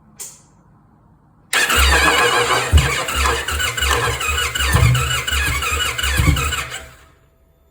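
A short click, then the 2024 Indian Pursuit's starter cranking the cold V-twin engine for about five seconds, uneven, with heavy pulses where it hangs up. This is the hard-start complaint that the owner puts down to a faulty torque limiting gear.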